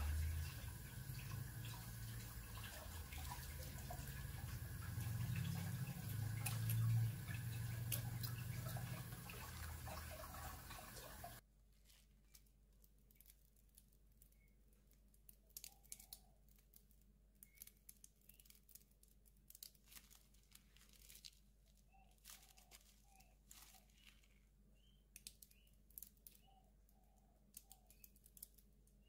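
Faint sputtering squelches and clicks of squeeze bottles drizzling ketchup and mayonnaise over topped sausage breads. A low hum under them cuts off suddenly about eleven seconds in.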